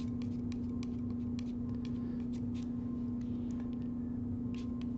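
Metal palette knife scraping and tapping on a palette while oil paint is mixed, giving small irregular clicks and scratches over a steady low hum.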